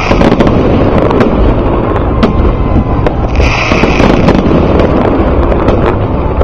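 Aerial fireworks display going off in a dense run of sharp bangs and crackles over a loud continuous rumble. A held high-pitched tone sounds for about a second a little past halfway.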